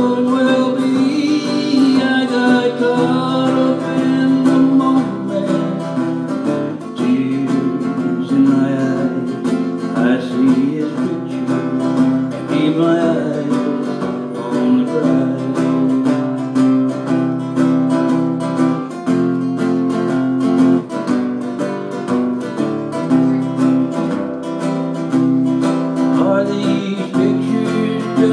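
Acoustic guitar strummed in steady chords, with a man's singing voice near the start and again near the end.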